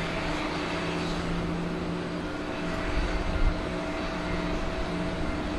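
Boeing 747-400 jet engines running at low power as the airliner taxis: a steady whine with a few held tones over a low rumble.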